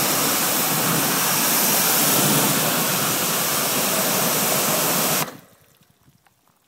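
A jet of water from a spray nozzle hissing steadily as it hits a car's waxed paintwork and alloy wheel; the spray cuts off suddenly about five seconds in, leaving only faint drips.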